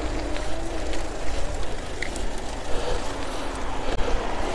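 Electric bicycle climbing a steep hill under motor power: a steady low rumble of wind on the microphone over road noise, with a faint steady hum.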